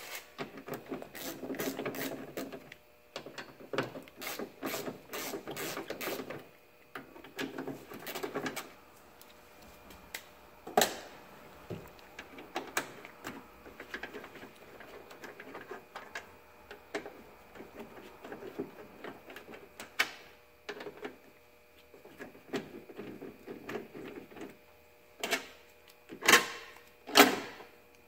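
Hand ratchet with a Torx bit clicking in quick runs as it backs out the Torx bolts holding a door latch. A few louder metallic knocks near the end.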